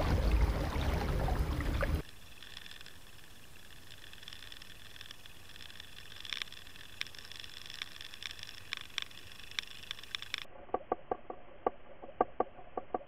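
Wind and water noise on the kayak's microphone for about two seconds, then a sudden change to faint, muffled underwater sound: a low hiss with scattered clicks and ticks that come faster and more regularly near the end.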